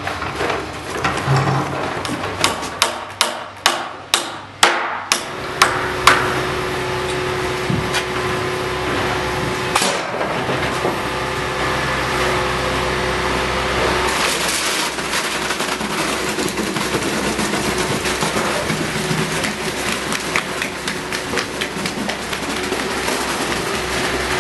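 Hammer blows on wood: about ten quick strikes, coming faster and louder, the last one the hardest. After them a steady hum, then a faint dense crackle.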